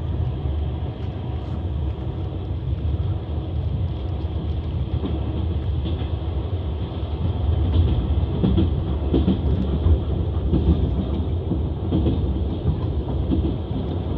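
Moving passenger train heard from inside the carriage: a steady low rumble of the wheels on the rails, with the clack of the wheels over the rail joints. The knocking grows louder a little past halfway.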